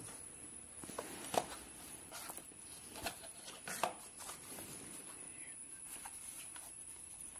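Cardboard packaging being handled and opened: light rustling and rubbing of the box flaps and inner tray, with a few sharp taps and knocks, the loudest about a second and a half in and two more around three to four seconds in.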